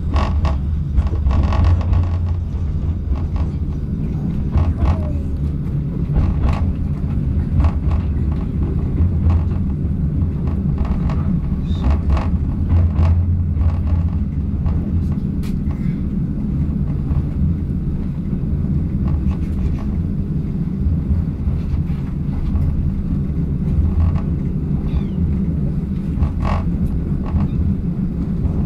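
Passenger train running on the track, heard from inside the carriage: a steady low rumble with scattered sharp clicks and knocks.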